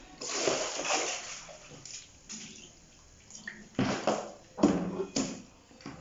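Soapy water tipped out of a plastic washtub and splashing onto a tiled floor, a rush of about a second, followed by two shorter splashes near the end.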